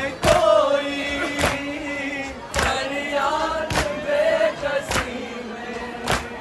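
A group of mourners chanting a nauha, a Shia mourning lament, together in long held notes. A sharp beat sounds about once a second in steady time with the chant.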